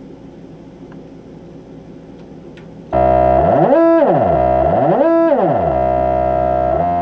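Korg MS-10 analog synthesizer sounding a held note from its voltage-controlled oscillator, which starts loud about three seconds in. Its pitch is swept down and back up twice by the oscillator's pitch control, then held steady.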